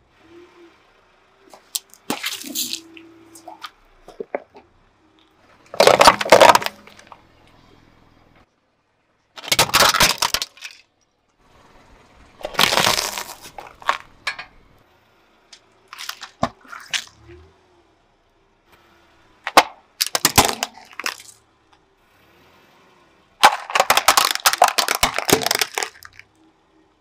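Small objects and toys cracking and crunching as a car tyre rolls over and crushes them, in about seven separate bursts of a second or two each, with short pauses between.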